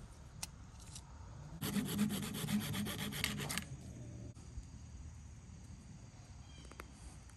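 Small hacksaw rasping through plastic in a quick run of strokes lasting about two seconds, starting about a second and a half in.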